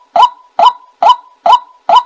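White-breasted waterhen calling: a string of short, sharp notes, about two a second. It is a recorded call played as a decoy to lure waterhens.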